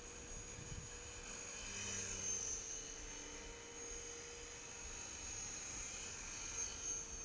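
Gaui X3 electric radio-controlled model helicopter flying, its motor and rotors making a steady high-pitched whine that swells slightly about two seconds in and again near the end.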